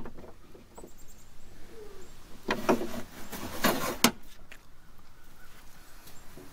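Socket wrench working the door handle's mounting nuts inside a truck door: a sharp click at the start, then a cluster of metallic clicks and clinks in the middle.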